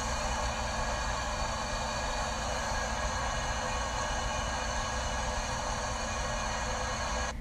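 A steady, even hiss with a low hum underneath: continuous machine noise with no distinct events.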